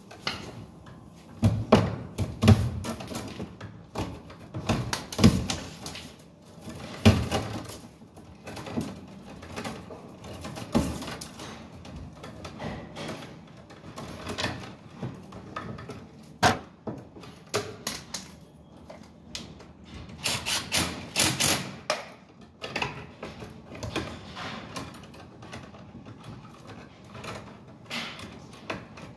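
Irregular clicks, snaps and knocks of hand tools and copper electrical wire being worked at a metal electrical box, as the wiring for an outlet is made up.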